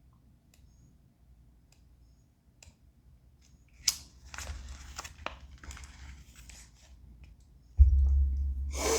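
Paper pages of a guidebook being rustled and flipped, starting with a click about four seconds in, then a sudden dull thump near the end.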